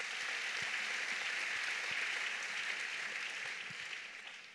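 Audience applause, steady, then dying away near the end.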